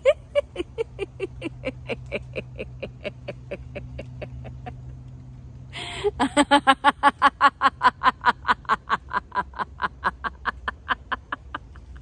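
A woman laughing on purpose in long runs of quick 'ha-ha-ha' pulses, about five a second. The first run fades away over about five seconds. A second, louder run starts about six seconds in and lasts to near the end.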